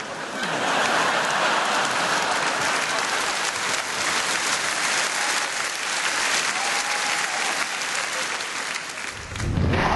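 Live audience applauding steadily, with a short dip near the end.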